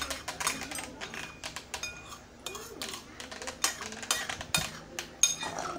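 Metal spoon and fork clinking and scraping against a bowl while noodles are eaten, in many quick, irregular clinks.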